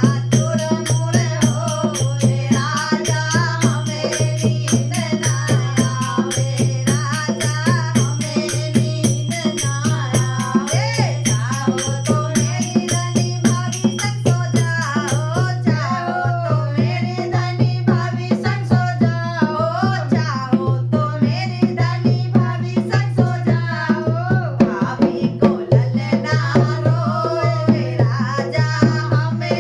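Folk song with a steady hand-drum beat and a rattling percussion accompaniment, and a woman's voice singing over it.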